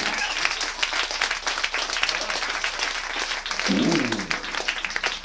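Audience applauding, a dense patter of hand claps, with one short falling pitched sound about four seconds in.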